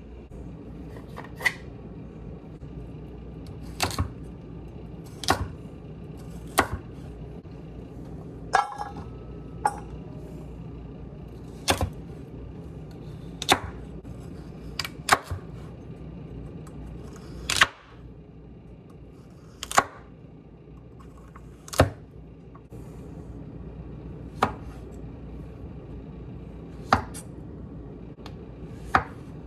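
Chef's knife slicing through baby carrots and then a zucchini on a wooden cutting board: single sharp knocks of the blade on the board every second or two, at an unhurried, uneven pace, over a steady low hum.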